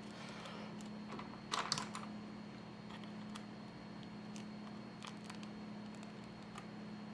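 Small clicks and taps of tools and parts being handled while working on an opened iPhone, with a short burst of sharper clicks about one and a half seconds in, over a steady low hum.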